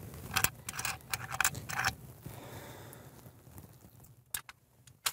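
Small metal objects clinking and rattling for about a second and a half, then two single sharp clicks near the end.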